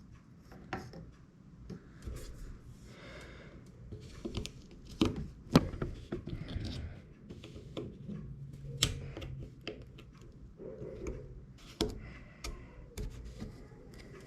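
Irregular small clicks and scrapes of a pry tool working under an iPhone 6s battery, prying against the adhesive that holds it down, with a few sharper clicks.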